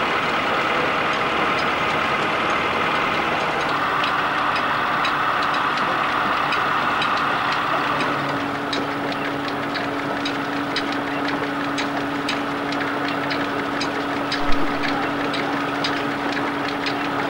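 Engine running steadily on a threshing day, a continuous hum whose pitch settles to a new steady tone about halfway through. In the second half it carries light, irregular ticks a few times a second, and there is one brief thump near the end.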